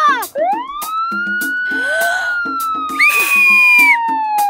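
A single long sliding tone that rises quickly, then falls slowly and steadily, over background music with short repeated notes. About three seconds in, a second, higher steady tone sounds for about a second.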